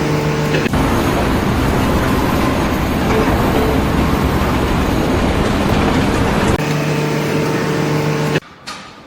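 Loud, steady engine noise from a vehicle or heavy machine, with a droning hum. It cuts off suddenly near the end.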